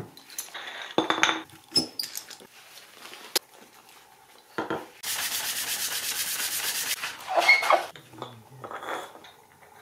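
Metal bar clamps being loosened and handled on a wooden workbench: scattered clicks and knocks of metal and wood. About halfway through comes a steady rasping that lasts about two seconds, followed by more knocks as wooden pieces are set down.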